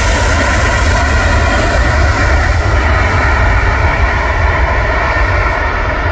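Boeing 777-300ER's GE90 jet engines running loud and steady as the airliner rolls out just after touchdown, over a deep rumble.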